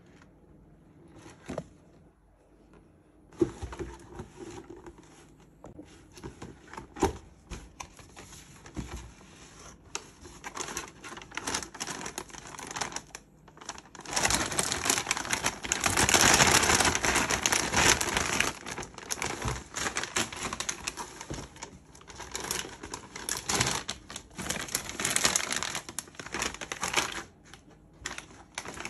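Shopping packaging being handled and opened: crinkling and tearing with small clicks and taps, at its loudest in a stretch of continuous crinkling about halfway through.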